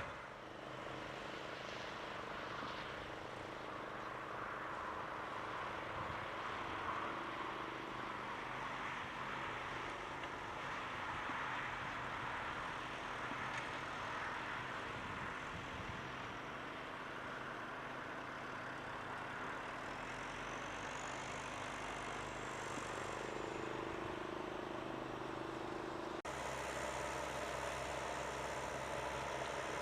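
John Deere 6310 tractor's diesel engine running steadily while pulling a reversible plough. The sound changes abruptly to a slightly louder, deeper rumble near the end.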